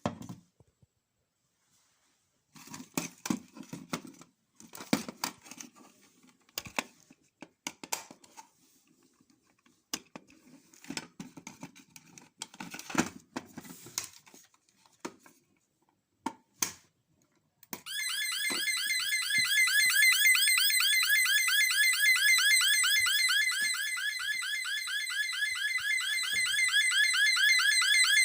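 Clicks, knocks and rustling of handling for the first two-thirds, then an electronic fire alarm sounder, running without a control panel, starts with a loud, rapidly warbling tone that sweeps up and down many times a second and keeps going.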